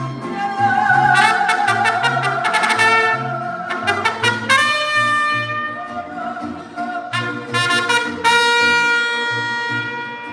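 Music led by brass horns, trumpet-like, playing long held notes over a bouncing bass line.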